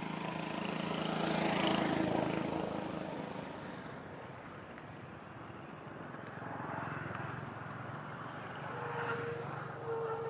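Motor engine noise from passing traffic, swelling to its loudest about two seconds in and fading, then rising again in the second half with a steady tone near the end.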